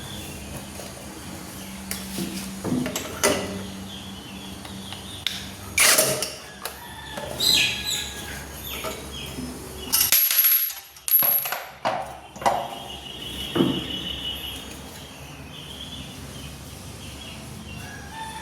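Irregular metallic clinks and knocks of hand tools and loose parts while a scooter's CVT casing is being taken apart, with a brief squeak partway through.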